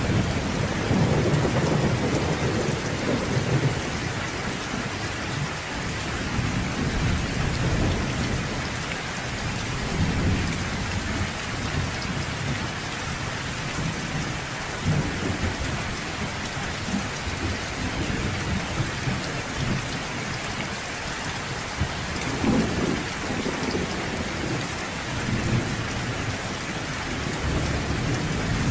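Steady rain falling, with low thunder rumbling under it. The thunder swells near the start, again about a third of the way through, and most strongly about three-quarters through.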